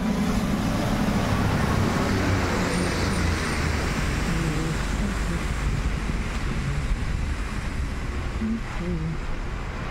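Ashok Leyland box truck's diesel engine and its tyres hissing on the wet road as it drives past close by, easing off after the first few seconds into steady wind noise on the microphone.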